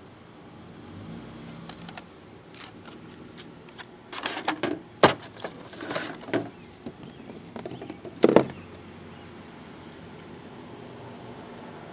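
Scattered sharp clicks and knocks: a cluster of them in the middle and one louder knock a few seconds later.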